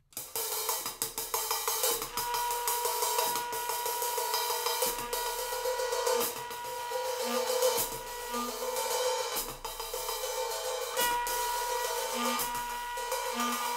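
Instrumental music: an acoustic drum kit played with busy hi-hat and cymbal work over a sustained electronic-sounding drone. A steady held tone comes in about two seconds in, and short low notes join from about five seconds.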